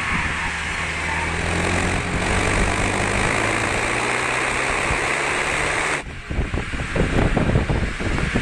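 Renault Mégane RS 250's turbocharged four-cylinder engine running hard at track speed, with a steady engine note under a thick rush of wind and tyre noise. About six seconds in, the hiss drops off abruptly and an uneven low rumble follows.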